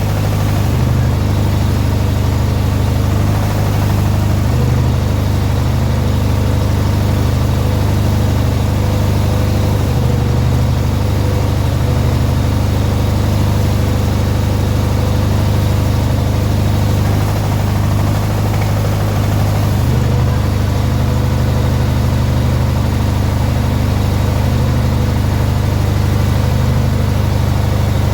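An 18 hp Briggs & Stratton twin-cylinder engine on a lawn tractor idles steadily, with a slight change in its tone about twenty seconds in.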